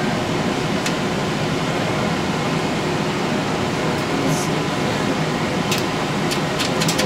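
Steady whir of a film projection room's fans and air handling, with a few light clicks from the 70mm projector as it is handled. Right at the end a fast, even mechanical ticking starts as the projector begins to run.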